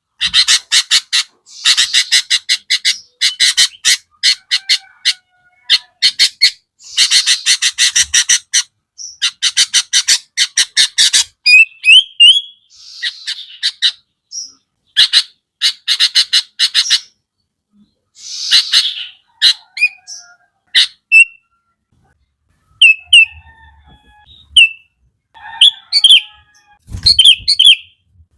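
Sooty-headed bulbul (kutilang) singing: runs of fast, harsh chattering, about ten strokes a second, alternating with short, clear whistled notes, with a brief pause a little after the middle.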